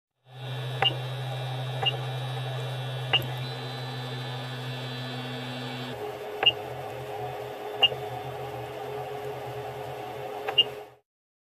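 Creality 3D printer's control box humming steadily, with six short beeps from its buzzer as the control knob is pressed to work through the menu. The hum changes about six seconds in.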